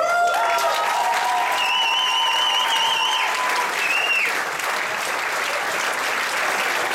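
Audience applauding and cheering at the end of a dance number, with long, high-pitched whoops over the first three or four seconds.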